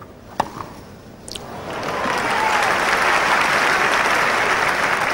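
A sharp crack of a racket striking a tennis ball, then a crowd's applause that swells over about a second and holds steady, greeting a point won by a forehand winner.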